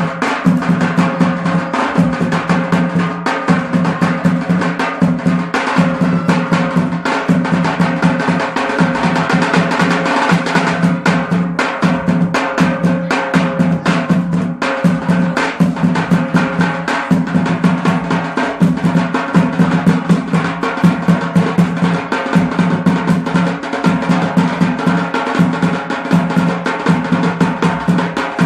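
Tabl drums beaten in a fast, steady rhythm for dancing, over a steady low tone held underneath.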